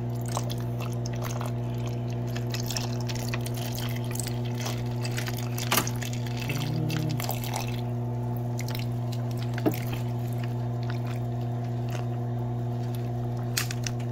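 Juice trickling from a Capri Sun pouch onto nugget ice in a cup, with scattered small clicks. Under it runs the steady hum of the countertop nugget ice maker.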